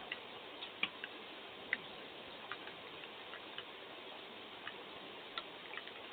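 Scattered water drops ticking irregularly on a hard surface over a faint, steady hiss of rain.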